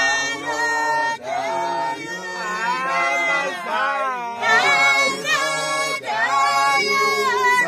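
Voices singing a melody with long gliding notes and no break.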